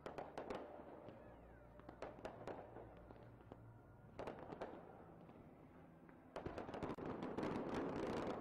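Aerial fireworks exploding: scattered separate bangs for the first few seconds, then from about six seconds in a dense, louder run of rapid bangs and crackling.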